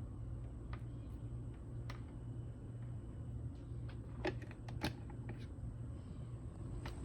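Lakewood P-222 20-inch box fan running with a steady low hum. A few sharp clicks sound over it, the loudest about four and five seconds in.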